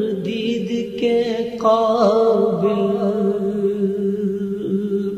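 A male voice sings an Urdu naat without instruments, drawing out a long, ornamented melodic phrase on held notes. It trails off at the end.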